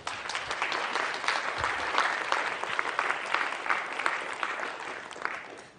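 Audience applauding at the end of a lecture, dense clapping that fades out near the end.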